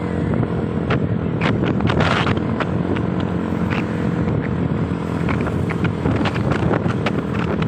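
Motorcycle engine running steadily on the move, with scattered short clicks and rattles over it.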